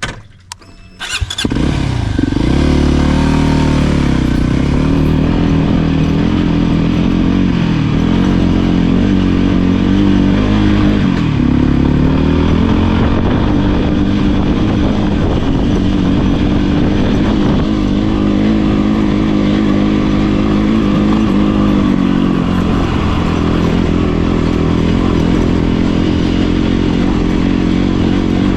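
Voge 300 Rally's single-cylinder engine pulling away about a second in, then running under constantly changing throttle, its pitch rising and falling as the motorcycle is ridden over loose rocks.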